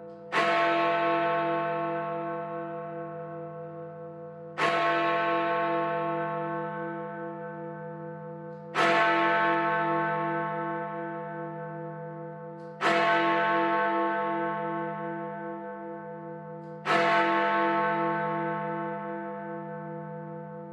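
A large bell tolled slowly, struck five times about every four seconds, each strike ringing out with a pulsing hum and fading away before the next.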